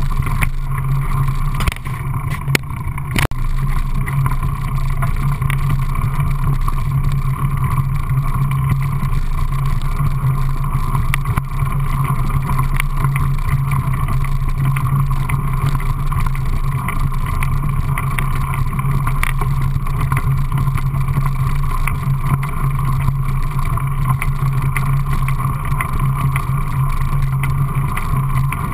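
Mountain bike rolling fast down a gravel trail, heard from a camera mounted on the bike: a loud, steady rush of wind on the microphone and tyre noise on the gravel, with a few sharp knocks about two to three seconds in.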